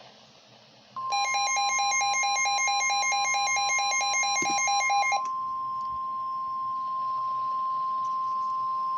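NOAA Weather Radio's warning alarm tone, a single steady high beep, starts about a second in and holds steady, signalling a warning about to be read. For its first four seconds or so, a second electronic alarm pulsing rapidly sounds over it.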